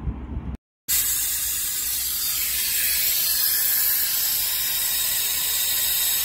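Compressed air escaping with a loud, steady hiss from a leaking air-line connector on a truck's air system. It starts abruptly about a second in.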